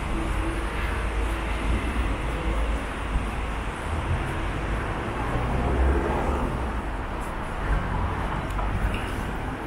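Steady city street traffic noise with a deep rumble underneath.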